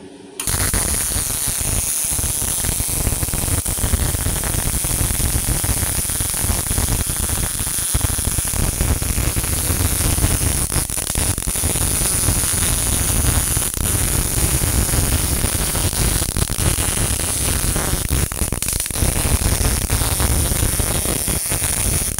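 MIG welding arc, CO2-shielded with 0.8 mm wire, from a Multipro MIG-MAG 250NF G-KR welder, its torch carried along the seam by a motorised welding carriage. A steady crackling sizzle strikes up suddenly just after the start and cuts off suddenly near the end.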